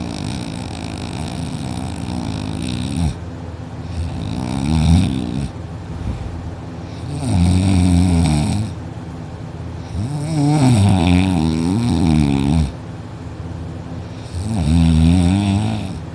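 A person snoring loudly in sleep: about five long snores, roughly three to four seconds apart.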